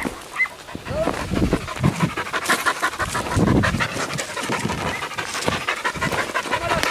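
Podenco Andaluz hunting dog panting rapidly and heavily, the panting of a dog worn out by hard running in summer heat.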